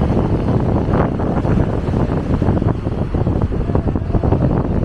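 Wind buffeting the microphone, with the wash of breaking surf underneath.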